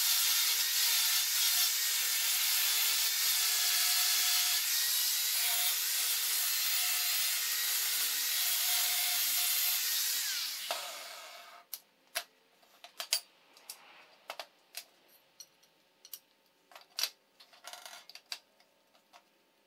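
Angle grinder grinding steel, a steady loud hissing grind that stops about ten seconds in and winds down. Then a scattered run of light clinks and knocks as the steel bracket pieces are handled.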